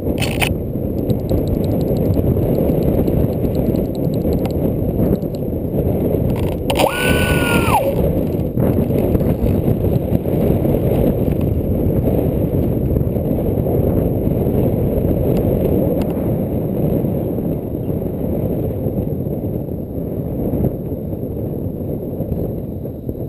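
Wind buffeting the microphone of a GoPro riding on a Bixler RC plane in flight in strong wind, a dense, steady rumble. About seven seconds in, a brief whine rises and then falls, which fits the plane's electric motor being throttled up and back down.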